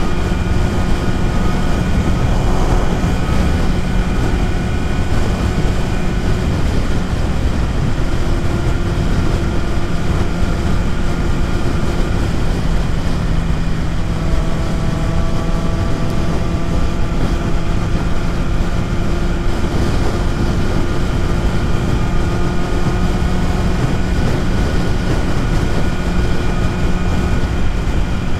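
BMW S1000RR inline-four engine running at a steady cruise, under heavy wind noise on the microphone. The engine note shifts slightly about halfway through.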